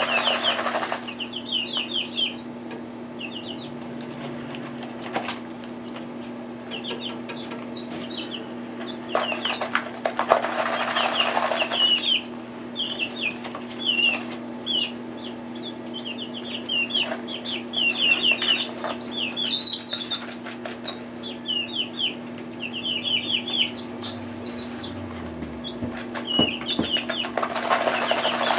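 Four-week-old chicks peeping in runs of short falling peeps while they dust bathe in sand and dirt. Three times (at the start, about ten seconds in, and near the end) comes a rushing flurry of wings flapping and dirt being flicked and shaken through the feathers.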